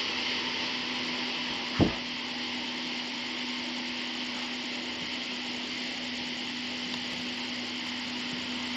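Small boat motor running steadily, with one short knock about two seconds in.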